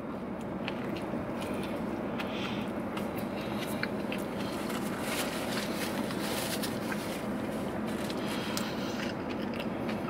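A person biting into and chewing a fried chicken tender on a toasted bun, with small crunches and clicks over a steady background hum.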